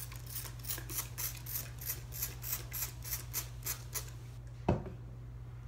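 Spray bottle pumped rapidly onto hair: about a dozen short hissing squirts at roughly three a second. A single knock follows about five seconds in.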